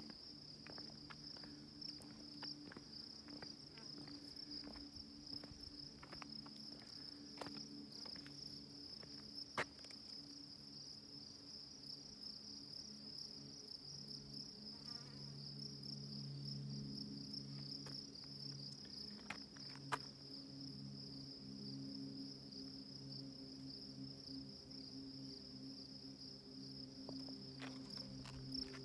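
Steady, unbroken high-pitched buzz of insects calling, over a faint low hum, with a few scattered faint clicks.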